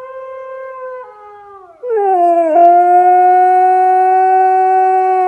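Husky howling along to another husky's howl: a quieter howl at first, then about two seconds in a loud, long howl that dips in pitch and then holds steady.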